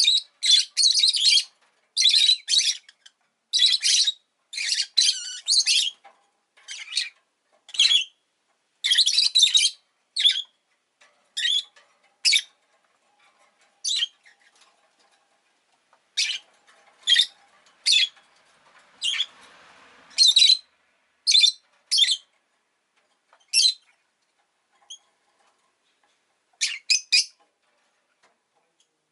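Rosy-faced lovebird chirping: quick runs of short, high calls, packed close together for the first ten seconds or so, then more spaced out.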